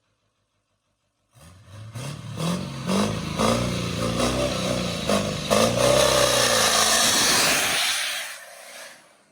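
A vehicle engine revving up and down several times, starting about a second in and dying away near the end.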